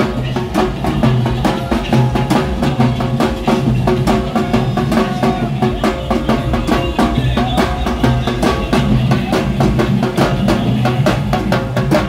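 Live drumming on slung double-headed barrel drums, playing a loud, fast, steady beat, with a tune heard over the drums.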